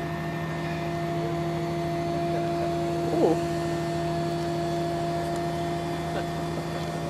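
Aerial ladder fire truck's engine and hydraulics running with a steady even hum as the ladder raises the platform. A short wavering sound rises over it about three seconds in.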